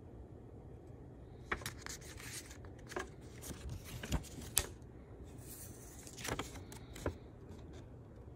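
A paper banknote handled and turned over on a wooden table: scattered crinkles and light taps, the sharpest about halfway through.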